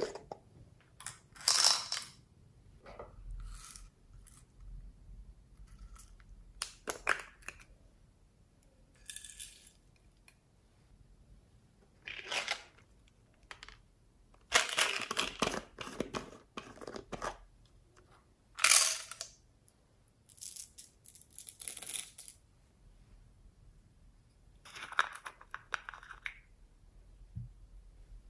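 Small plastic jars handled and their lids twisted and pulled open: scattered short scrapes, clicks and taps with quiet gaps between them.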